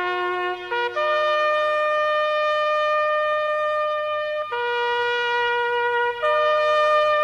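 Instrumental music: a slow melody of long held notes on a reedy wind-like instrument, one note at a time, changing pitch every second or few.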